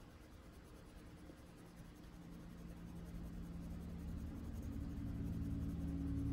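Faint scratching of a coloured pencil blending on paper. From about two seconds in, soft background music of held low notes fades in and grows louder.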